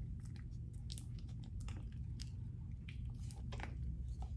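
Sticky homemade slime of glue, baking soda and contact solution being stirred and pulled with a wooden popsicle stick in a plastic cup: irregular small wet clicks and squelches as the stick and slime pull apart. The slime has thickened but is still sticky.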